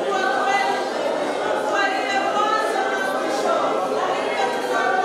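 A church praise team singing together as a choir, with little or no instrument heard, the voices holding long sustained notes.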